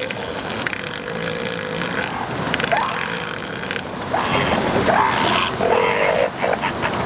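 Northern elephant seals calling: a female pinned under a mating bull gives several harsh, throaty calls, the strongest in the second half, as she protests his mounting.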